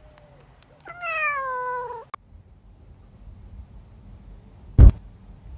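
A cat gives one long meow, falling in pitch, about a second in. Near the end comes a single loud, sharp thump.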